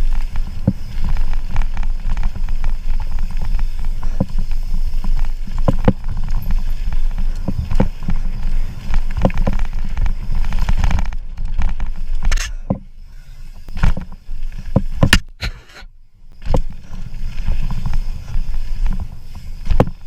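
Evolve Alpha mountain bike descending a rough bike-park trail. Wind buffets the rider's camera microphone, and the tyres, frame and drivetrain rattle over bumps and rocks with many sharp knocks. Just past halfway the noise drops for a few seconds, broken by a few hard knocks.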